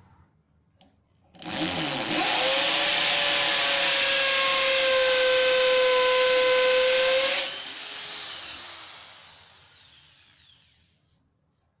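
Promaker PRO-TP550KIT 550 W hammer drill set to hammer (percussion) mode, boring into a brick and running steadily for about six seconds. The trigger is then let go and the motor winds down with a falling whine.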